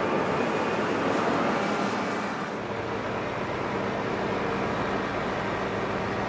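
Heavy snow-removal machinery running steadily: a snowblower's engine and blower working as it loads a truck. The engine hum holds steady under a rushing noise, and the upper hiss eases about two and a half seconds in.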